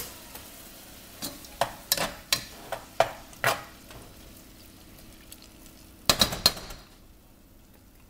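Kitchen handling noises: a few sharp clicks and knocks in the first few seconds, a quick cluster of them about six seconds in, over a faint steady hiss.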